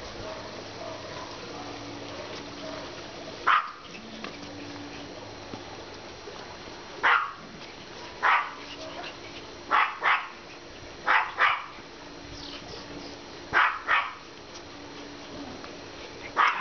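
Yorkshire terriers yapping during excited play, in short high barks: one about three and a half seconds in, then more spread through the rest, several in quick pairs.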